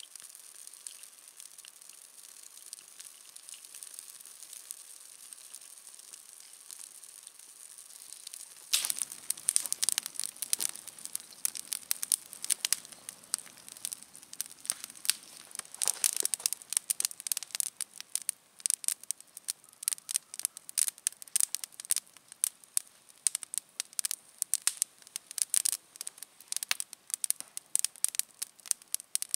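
Wood campfire of logs and dry branches crackling, faint at first, then from about nine seconds in a dense, irregular run of sharp pops as the fire burns up.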